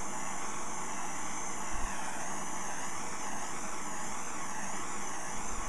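Small handheld cooking gas torch burning with a steady hiss that wavers a little as the flame is moved over a small steel part, heating it to temper colours for bluing.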